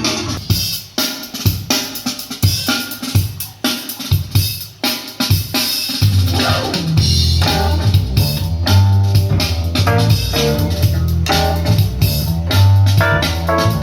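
Recorded music with a drum kit playing back through passive PA speakers on a sound test: sparse, punchy drum hits at first, then a heavy bass line and fuller band come in about six seconds in.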